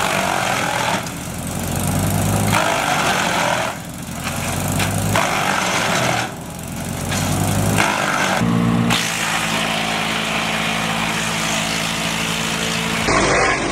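Wood chipper engine running loud, its level dropping briefly three times and climbing back each time, with an abrupt change of engine sound near the end.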